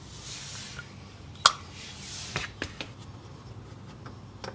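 Metal clicks and clinks from a cap-type oil filter socket being handled and pushed onto a car's oil filter: one sharp click about a second and a half in, then a few lighter clicks, with faint rustling between.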